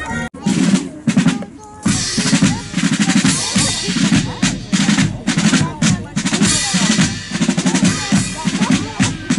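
Military band drums beating a steady march cadence, bass and snare drum together, about two strong beats a second. The drumming briefly drops out just after the start and comes back in about two seconds in.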